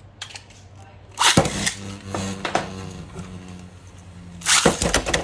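Beyblade X tops launched with a ripcord launcher about a second in, then spinning and clattering in the plastic stadium, with a burst of sharp clashes near the end.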